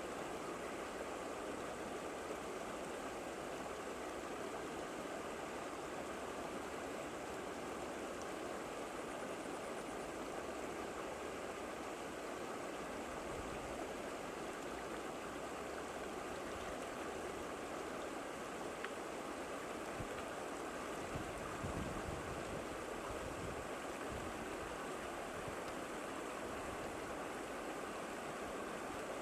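Steady rushing of water, with a few low gusts of wind on the microphone about two-thirds of the way through.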